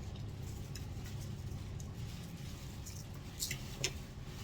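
Small clicks and taps of people eating at a table, with two sharper clinks near the end, over a steady low room hum.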